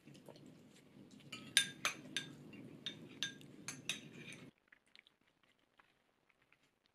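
Wooden chopsticks and a squeeze tube clinking against a small ceramic dish, a run of sharp taps from about a second and a half to four and a half seconds in over a low hum. After that the hum stops and only faint ticks are left.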